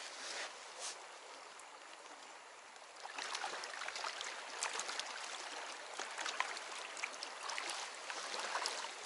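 Mountain river rushing over a stony riffle. About three seconds in, the water sound grows louder and is broken by many small sharp splashes and ticks.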